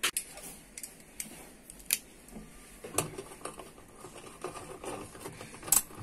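Sharp metallic clicks and light ticks from a socket tool turning the bolt that holds the washing machine's agitator, a few separate clicks with faint ticking between.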